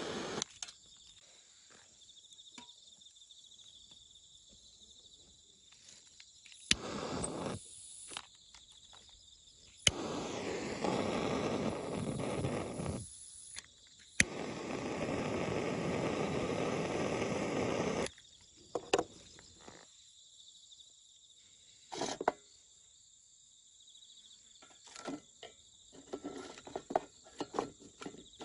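A torch lighter burning in bursts of a few seconds, each starting with a sharp click and holding a steady hiss, its flame held into a small folding metal wood stove to light paper and twigs. Insects chirr steadily in the background, and a run of small cracks and taps comes near the end.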